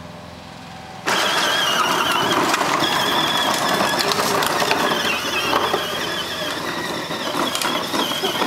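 Battery-powered children's ride-on ATV, Kawasaki-branded, setting off about a second in: its electric drive motors and plastic gearbox whine while the hard plastic wheels rumble over the asphalt.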